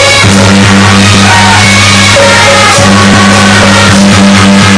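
Loud traditional Taiwanese temple procession music, with pitched wind instruments over percussion and a few crashes of cymbals or gongs near the end. It is loud enough to overload the recording.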